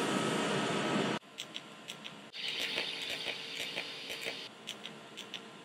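TIG welding arc buzzing and hissing, loud, then cutting off abruptly about a second in. After it, a quieter arc hisses for a couple of seconds over a run of quick, even ticks.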